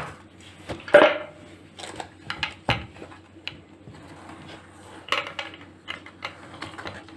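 A wooden chopping board and an aluminium cake tin being handled on a stone counter: a run of separate knocks and clatters with lighter taps between them, the loudest about a second in.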